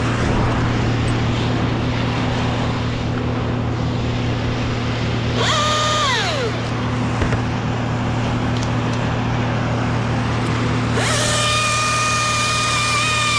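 Battery top-handle chainsaw, a Husqvarna T540i, whining briefly and spooling down about halfway through, then running steadily near the end, over a constant low hum.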